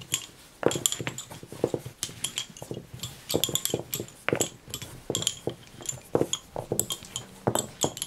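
Lace bobbins clicking and clacking against one another as bobbin lace is worked: an irregular run of light, sharp knocks, a few a second.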